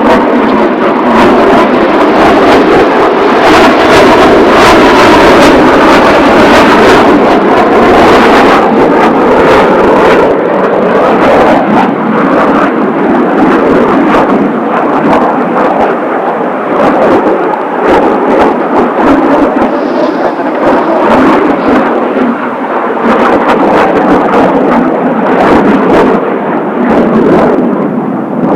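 Roar of Blue Impulse's Kawasaki T-4 jet trainers flying in formation overhead, loud and sustained, with a faintly shifting pitch in the first few seconds.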